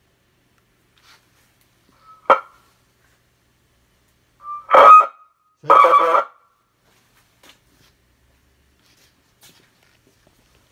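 Electronic police siren unit giving three short tone bursts, like horn blips: a brief one about two seconds in, then two short honks around the middle, the first of these the loudest.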